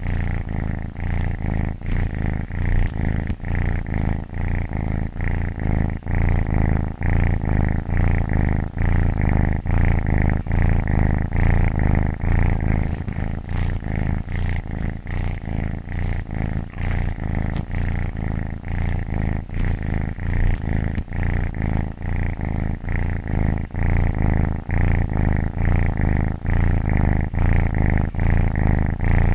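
Domestic cat purring continuously, a low rumble with a fast even flutter that swells and eases with each breath in and out.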